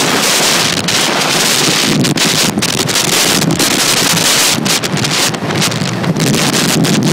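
Wind buffeting the microphone at speed over the steady rumble of inline skate wheels rolling on coarse asphalt, during a fast downhill run.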